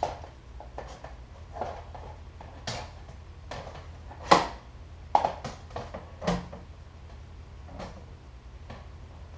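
Objects being handled and set down: a string of irregular knocks and clicks, the sharpest about four seconds in, over a steady low hum.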